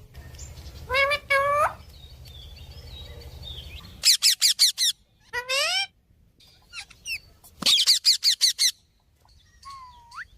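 Ring-necked parrot calling: two short squawks about a second in, then two rapid runs of about six shrill chirps each, around four and eight seconds in, and a short rising whistle near the end.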